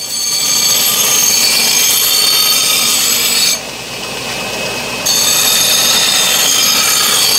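Belt grinder rough-grinding the bevels of a 1075 steel cleaver blade against its abrasive belt, a loud steady grinding hiss. About three and a half seconds in, the blade comes off the belt for a second and a half, leaving only the running belt, then grinding resumes.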